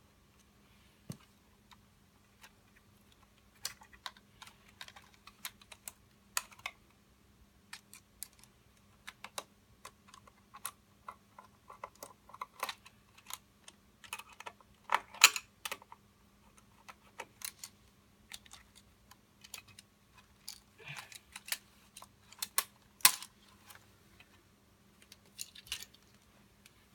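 Irregular small clicks and taps of a screwdriver and hands working on the screws, plastic and metal parts inside an opened hoverboard, as its battery is taken out. There is a denser run of louder clicks about halfway through.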